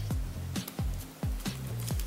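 Background music with a steady electronic beat: deep kick drums, a bass line and crisp hi-hat ticks.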